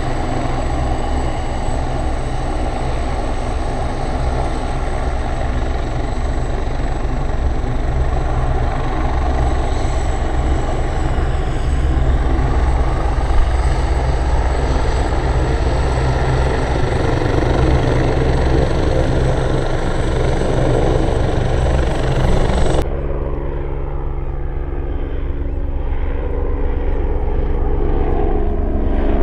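Helicopter rotors and turbine engines running steadily, a high turbine whine over a low rotor throb. About 23 seconds in the sound cuts abruptly to a slightly quieter aircraft whose engine tones slowly fall in pitch.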